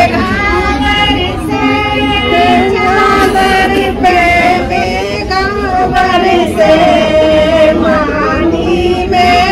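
A group of women singing a devotional song together in high voices, with long held notes.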